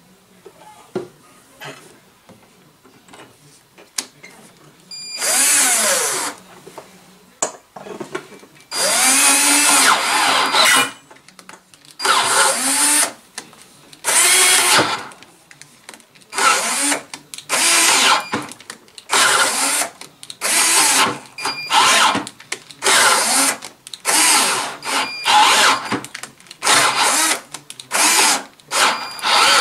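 Cordless drill driving an 8 mm tap into the end hole of an aluminium extrusion to cut threads. After a few quiet seconds with small clicks, it runs in repeated short bursts of a second or two, each one spinning up and winding down.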